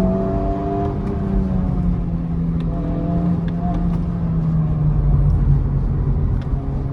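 Honda Civic Type R's 2.0-litre turbocharged four-cylinder engine under hard throttle in third gear, heard from inside the cabin as a steady drone over low road rumble. Its pitch eases down slightly near the end.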